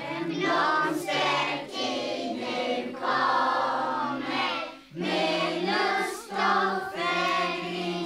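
A group of young children singing a song together in unison, in phrases with a short pause about five seconds in.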